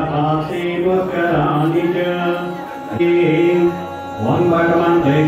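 A male officiant chanting Hindu mantras into a microphone in long, held notes with short breaks between phrases.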